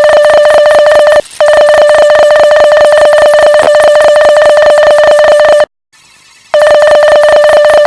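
Loud electronic Morse code tone pitched around 600 Hz, beeping in fast, even pulses in long runs. There is a short break about a second in and a pause of under a second past the middle.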